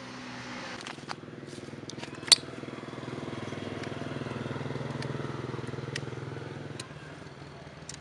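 A motor vehicle engine, likely a motorcycle, passing: a steady low drone that swells to its loudest about five seconds in and fades away near the end. A few sharp clicks sound over it, the loudest about two seconds in.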